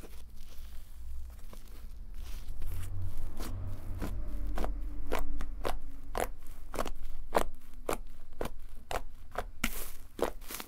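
Fluffy cloud slime, made with instant-snow polymer, being squished, pressed and pulled apart by hand, giving crackling, squelchy pops. The pops are sparse at first, then come about two a second from a couple of seconds in, over a low handling rumble.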